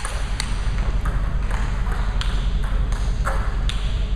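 Table tennis balls clicking off tables and bats, a string of sharp, irregularly spaced clicks, some with a short ring after them, over a steady low hum.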